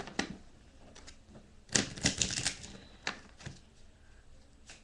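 A deck of playing cards being shuffled by hand: scattered sharp card clicks, with a quick rattling run of them about two seconds in.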